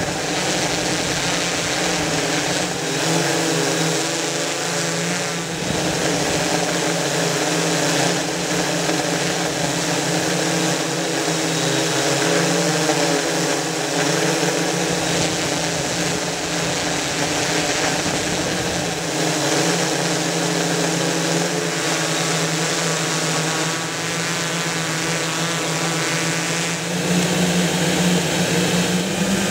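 MikroKopter XL octocopter's electric motors and propellers buzzing steadily, heard close up from the camera it carries. The pitch of the tones wavers as the craft manoeuvres, and it gets a little louder near the end.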